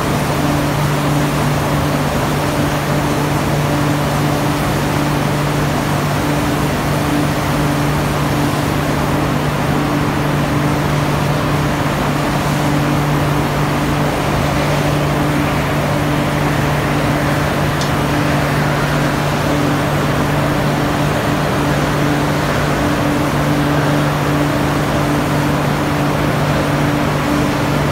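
Steady, loud industrial hum of steel-mill machinery beside a molten-steel ladle: a low drone under a wide hiss, with a higher tone that keeps cutting in and out.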